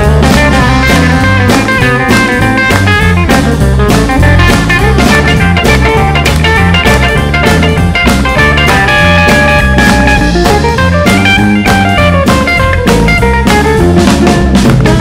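Live blues band in an instrumental break: an electric guitar with P-90 pickups plays a lead line of quick single notes over bass and a steady drum-kit beat.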